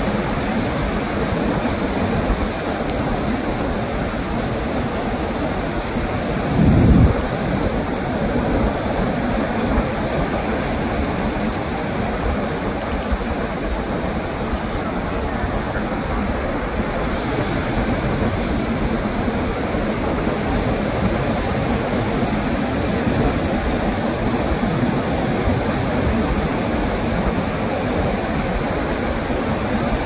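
Steady wash of ocean surf mixed with wind noise, with a brief louder low rumble about seven seconds in.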